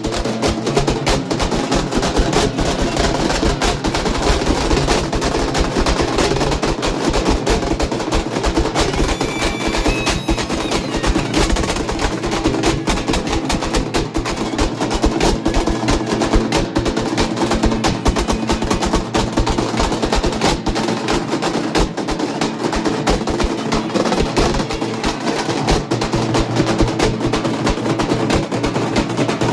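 Several halgi, leather-headed frame drums beaten with sticks, played together in a fast, unbroken rhythm of dense strokes.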